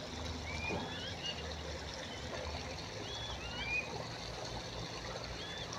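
Outdoor ambience: a steady hiss with short, high bird chirps recurring every second or so.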